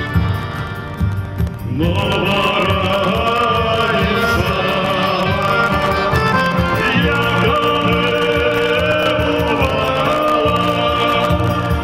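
Live folk band: accordion playing alone at first, then a male voice starts singing about two seconds in, over acoustic guitar, accordion and a steady drum beat.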